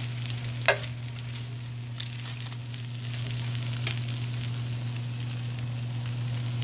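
Tomatillos and serrano chiles sizzling as they roast on the stove, nearly done, with a steady low hum underneath and a few light clicks.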